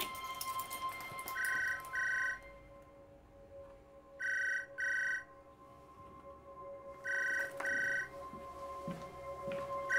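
Home landline telephone ringing with an electronic double ring: a pair of short beeping tones about every three seconds, three times.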